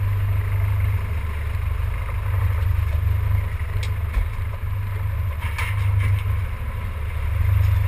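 Fishing boat's engine running with a steady low drone, a couple of faint clicks over it.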